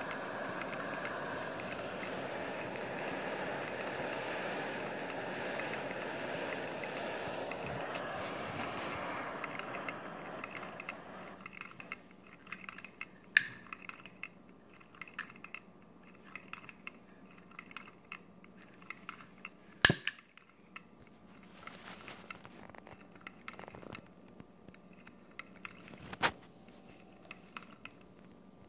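Multi-cylinder Stirling engine model running on its ring of burner flames: a steady hiss and whirr that falls away about ten seconds in, leaving faint rapid ticking. Three sharp clicks come later, the loudest sounds here.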